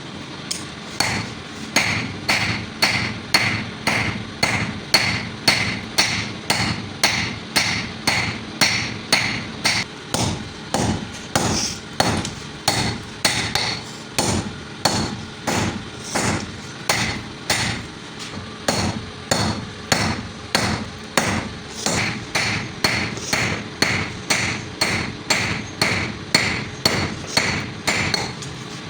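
Hand hammer forging a heated piece of drill-bit steel into a knife blank: steady blows at a little under two a second, each ending in a short metallic ring.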